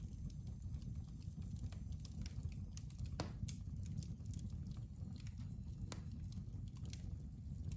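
Faint outdoor ambience: a steady low rumble with a few scattered sharp clicks, about 3 and 6 seconds in.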